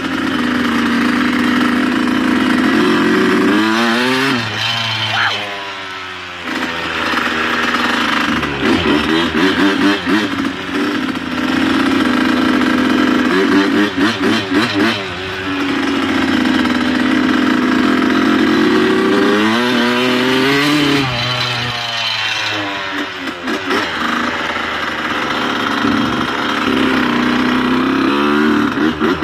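Dirt bike engine running while the bike is ridden, its pitch climbing and dropping back several times as the throttle is opened and eased, with stretches at a steady pitch in between.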